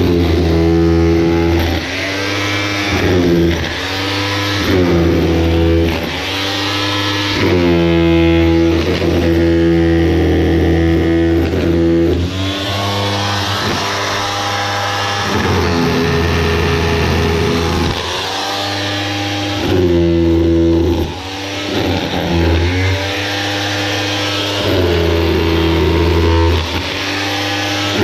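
Makita electric breaker hammer chiselling into concrete blocks, running in stretches of a second or two with short dips as it is pushed in and eased off.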